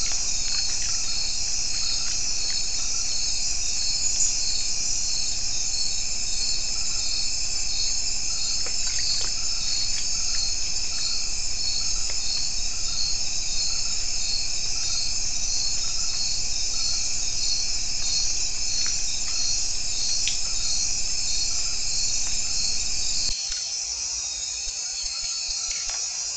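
Night insect chorus of crickets: a dense, steady high-pitched trilling, with one caller pulsing about twice a second. The sound gets a little quieter near the end.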